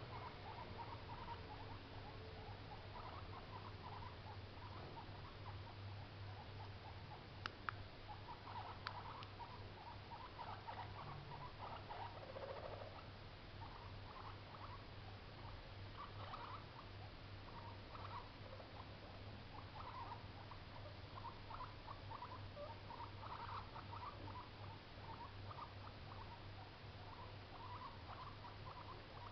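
Baby guinea pig calling in repeated runs of short, quick, faint calls over a steady low hum, with two sharp clicks about seven and nine seconds in.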